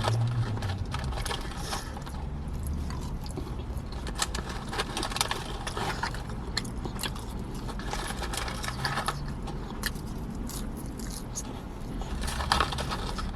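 Chewing and biting into crispy fried chicken close to the microphone: irregular crunching and crackling clicks over a low background hum.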